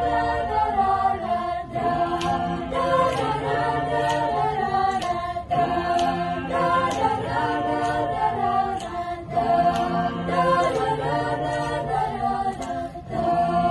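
Mixed choir of men and women singing a cappella in harmony, with sharp beats about twice a second through most of the passage.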